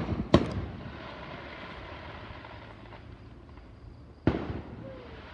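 Aerial firework shells bursting: two sharp booms in quick succession at the start and another about four seconds in, each trailing off in an echoing rumble.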